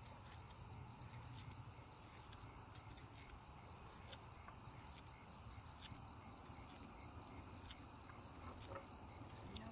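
Faint, steady chorus of night insects trilling.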